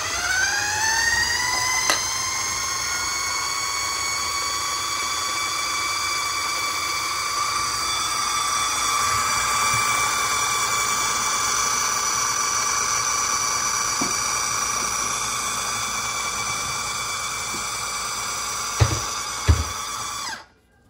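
Food processor motor spinning up with a rising whine, then running steadily as it purees a thick avocado and miso dressing. Two knocks come near the end, and then it cuts off.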